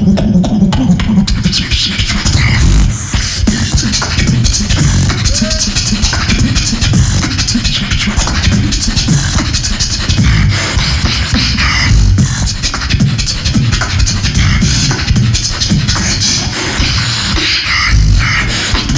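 Solo beatboxing into a microphone: very fast vocal percussion, dense rapid clicks and snare-like hits over deep kick-drum sounds, in an unbroken driving rhythm.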